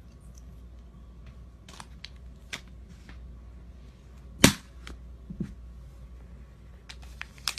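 A few scattered sharp knocks and clicks from objects being handled close to the microphone, over a low steady hum; the loudest is a single knock about four and a half seconds in, with a small cluster of clicks near the end.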